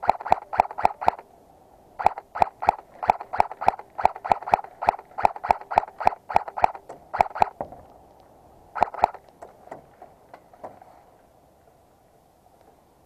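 Airsoft gun fired in quick single shots, about three or four a second, in strings broken by short pauses, then stopping after a last brief cluster.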